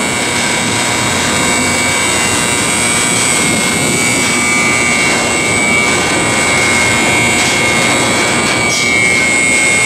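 Crane machinery running steadily: a constant loud mechanical drone with a steady high-pitched whine over it.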